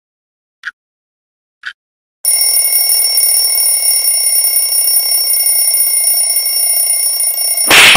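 Alarm clock ticking about once a second, then its bell ringing loudly for about five seconds, cut off near the end by a loud crash.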